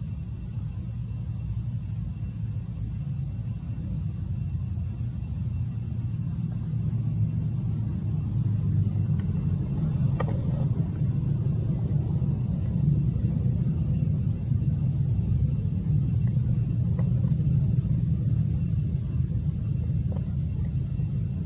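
A low, steady rumble that grows slightly louder, with a faint high steady whine throughout and a single sharp click about ten seconds in.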